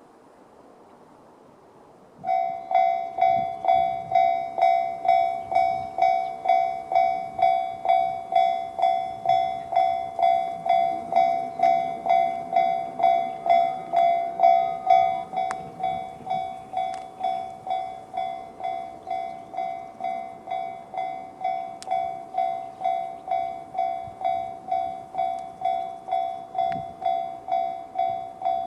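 Japanese level-crossing warning bell, the JR-standard electronic alarm tone, starting about two seconds in and striking evenly about three times every two seconds. It is loudest for the first half and steps down to a quieter level about halfway through.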